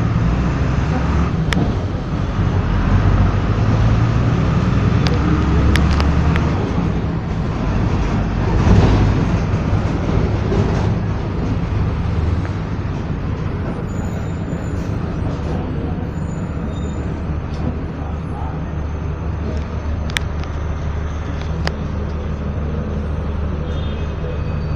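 Volksbus 17-230 EOD city bus's diesel engine and ride noise heard from inside the passenger cabin. The rumble is heavier for the first twelve seconds or so and steadier after that, with a few sharp rattles and knocks from the bodywork.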